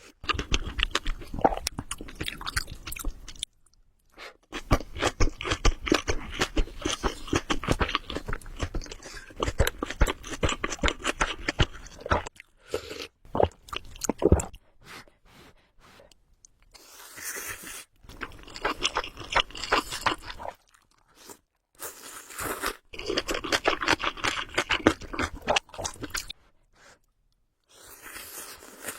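Close-miked chewing of spicy ramen: dense runs of small mouth clicks and smacks, broken by a few short silent gaps.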